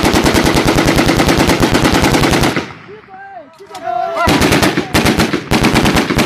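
Assault rifle firing long fully automatic bursts, about ten rounds a second: one long burst of about two and a half seconds, then after a short pause three more bursts in quick succession.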